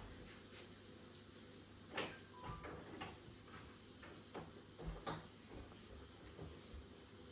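Faint, scattered taps and knocks of items being handled and set down at a gas stove during kitchen cleaning. The loudest is about two seconds in, with a few more near three and five seconds.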